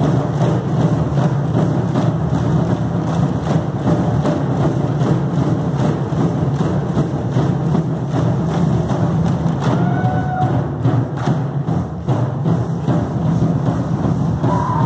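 Loud dance music driven by a heavy, steady drum beat, with repeated thuds throughout.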